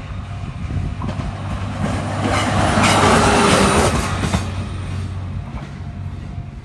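Train passing close by, its running noise building to its loudest about three seconds in and then fading away.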